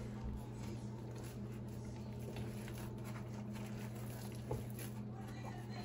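Hands working biscuit dough, just wetted with a little buttermilk: soft pats and squishes, with one sharper tap about four and a half seconds in. A steady low hum runs underneath.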